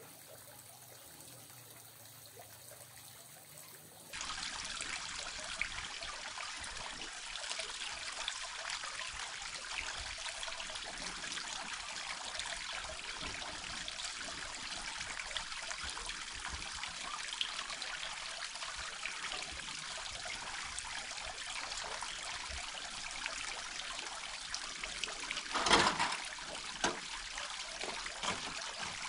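Water trickling steadily. It starts abruptly about four seconds in after a quieter stretch, and one brief louder sound comes near the end.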